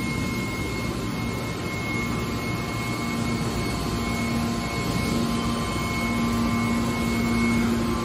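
Hydraulic power unit of a scrap-metal baler running with a steady hum and whine; a low tone in the hum grows stronger about five seconds in.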